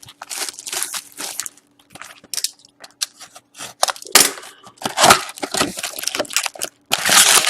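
A hobby box of Upper Deck SP Game Used hockey cards being opened by hand: irregular crinkling, crackling and tearing of its wrapping and cardboard, loudest near the end.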